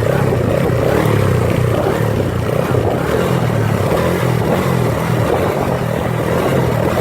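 Small ATV (four-wheeler) engine running steadily as it is ridden.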